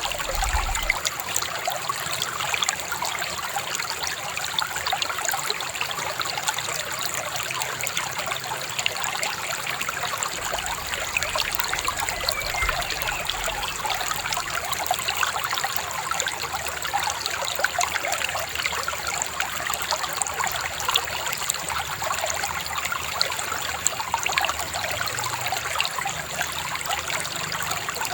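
A babbling river running steadily, a constant trickling and gurgling rush of water.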